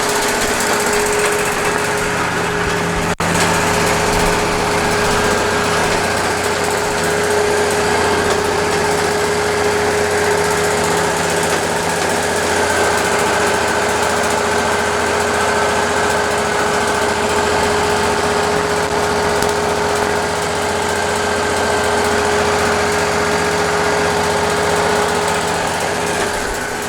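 Wood-Mizer LT40 sawmill running steadily, its engine drone joined by a constant whine.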